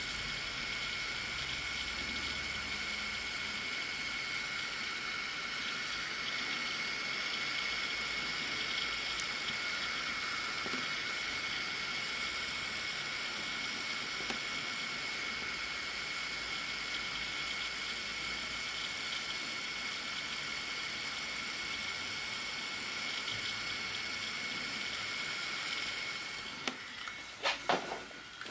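Hot air rework gun blowing steadily over a BGA chip, a hiss with a high fan whine, heating the solder balls to reflow them during reballing. It cuts off near the end, followed by a few sharp clicks and knocks.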